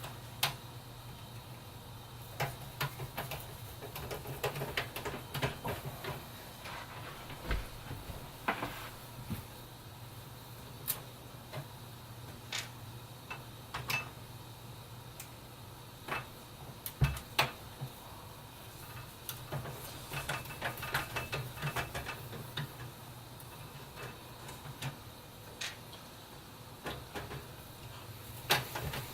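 Scattered light clicks, taps and scrapes of the rear case fan being unscrewed and lifted out of a PC case, with one louder knock partway through, over a steady low hum.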